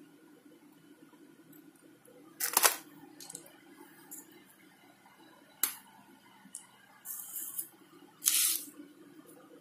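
Hands handling paper and paint tubes on a table: a few short rustling bursts, the loudest about two and a half seconds in and again near the end, and a sharp click about halfway. A low steady hum runs underneath.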